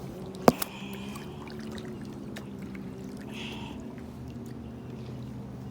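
Jet ski engine running with a steady drone, with one sharp click about half a second in.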